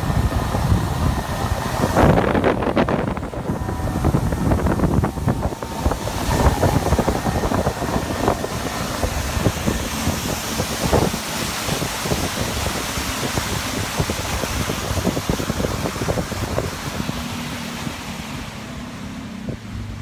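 Wind buffeting the microphone over the rush of water along the hull of a moving pontoon boat, in uneven gusts.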